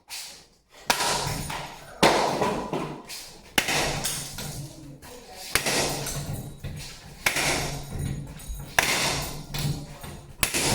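Ceiling fan being smashed: six heavy blows about every one and a half to two seconds, each a sharp crash that dies away quickly.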